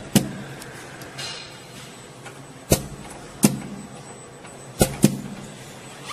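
Multi-needle silicone dispensing machine running: five sharp mechanical clacks, the last two close together, over a steady machine hum.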